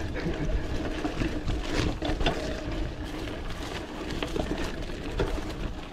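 Mountain bike rolling down a dirt forest singletrack: a steady low rumble from the tyres on the ground, with many small clicks and rattles from the bike as it bumps along.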